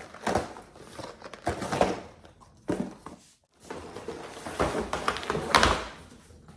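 Handling noise from cardboard boxes being moved and set down: several dull thunks with rustling between them, the loudest knock near the end.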